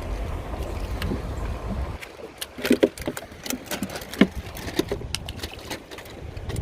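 Low wind rumble on the microphone aboard a small fishing boat for about two seconds, then a run of irregular knocks and taps around the boat.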